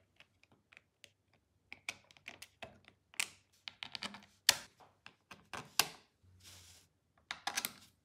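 Hard plastic clicks and knocks as the two halves of a 3D-printed remote-control case are handled and pressed together: an irregular run of sharp taps, the loudest about four and a half seconds in.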